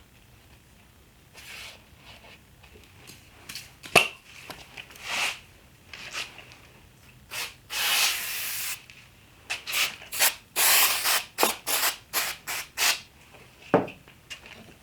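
Short hissing spray bursts, each about half a second to a second long, mixed with rubbing and a couple of sharp taps, while a wood strip is glued down with CA glue.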